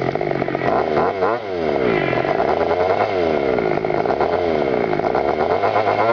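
Petrol two-stroke engine of an FG large-scale RC car, revving up and down over and over, the pitch dropping and climbing again about once a second.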